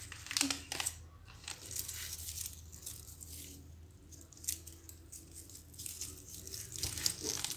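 Faint rustling and crinkling as hands handle a paper-flower hair gajra, with scattered small crackles.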